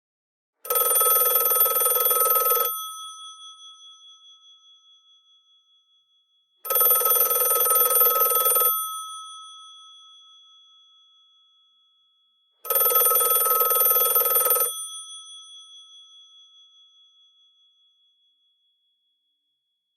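Telephone bell ringing three times, each ring lasting about two seconds and coming about six seconds apart, with the bell's tone fading away after each ring.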